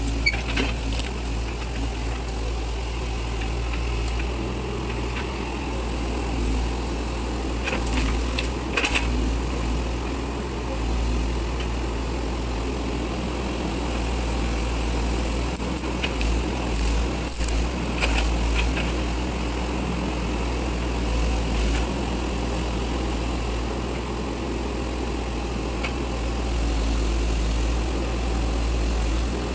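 Sumitomo SH100A2 excavator's diesel engine running steadily at close range as the machine works its arm. A few short knocks stand out, around eight seconds in and again around seventeen seconds in.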